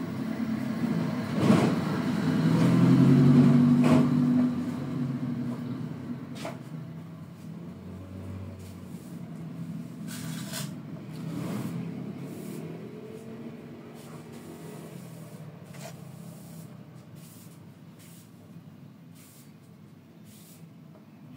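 Low engine hum of a motor vehicle going by, swelling to its loudest about three seconds in and then slowly fading away, with a few faint clicks.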